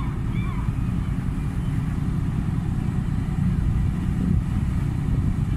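Steady low rumble of wind and harbour machinery noise. Over it, a few gulls call about half a second in, with fainter gull calls over the next second.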